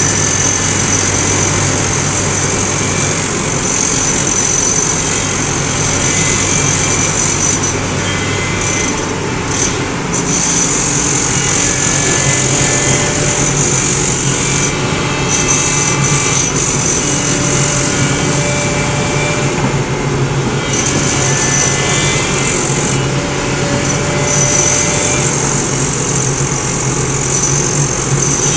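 SANY crawler excavator's diesel engine running steadily under load as the machine swings and digs in mud, its note shifting about a third of the way in, with a high hiss that cuts in and out.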